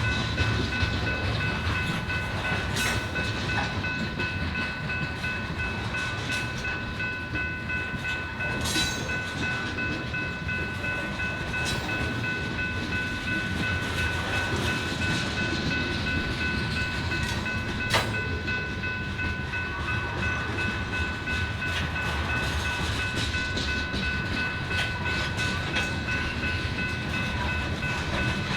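Freight train cars rolling past steadily, wheels clicking over the rail joints, with a steady high-pitched ringing held throughout and a single sharp clack about two-thirds of the way through.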